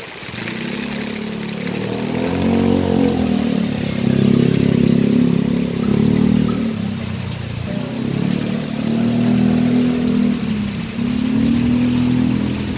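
Motor vehicle engine running and revving on the road alongside, its note rising and falling, over a steady hiss of rain.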